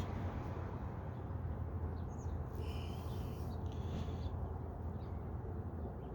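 Faint scraping and small squeaks of a speaker-wire spade connector being wiggled onto a car door speaker's terminal, over a steady low hum.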